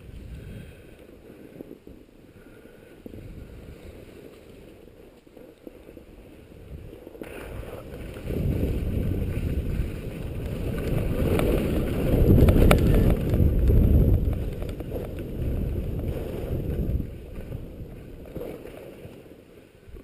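Wind buffeting the microphone of a first-person action camera as the skier runs downhill, mixed with skis sliding over packed snow. It grows much louder about eight seconds in, is loudest a few seconds later, then eases off near the end.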